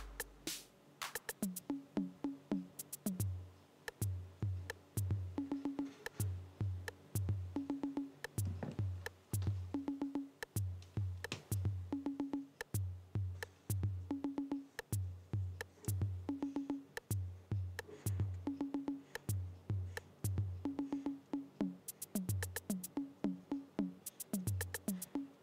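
Background music: an electronic drum-machine beat with deep thumps about twice a second, a short repeating synth figure and bright clicking ticks.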